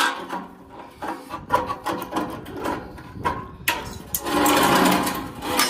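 Tin snips cutting square sheet-metal downspout: a run of short clicking snips, then a longer, louder crunching cut about four seconds in.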